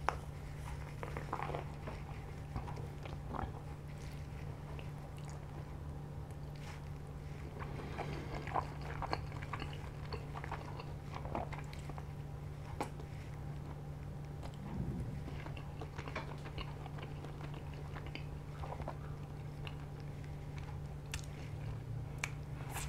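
Close-up chewing and biting of a mouthful of linguine, with scattered small wet clicks, over a steady low hum.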